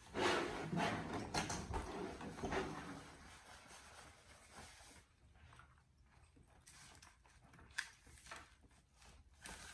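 Rustling of a paper napkin or wrapper and light handling noises of takeout boxes at a table, louder in the first few seconds, then a few scattered faint clicks and knocks.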